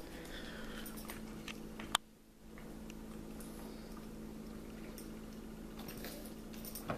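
A dog chewing and smacking at a donut, faint wet mouth sounds with small scattered clicks over a steady low hum; one sharper click just before two seconds in.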